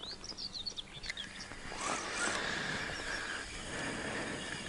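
Small birds chirping in quick, rising and falling notes, with a rustling noise about two seconds in.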